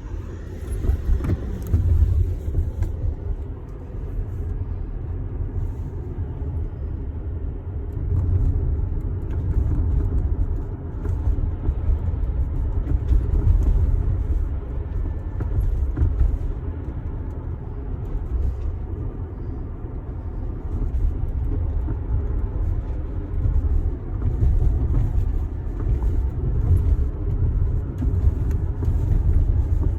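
Tesla Model X on the move: a steady low road rumble with scattered short knocks, the knocking noise the car has developed.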